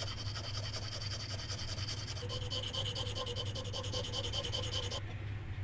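Hand file scraping back and forth along the edge of a carbon fiber plate, in quick repeated strokes. The scraping stops about five seconds in.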